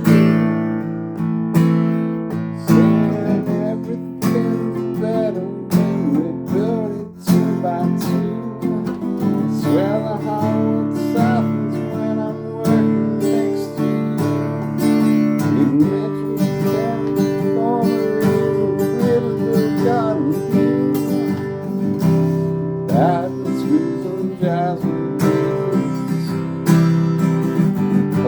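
Acoustic guitar strummed in a steady rhythm, with a melody line weaving over the chords.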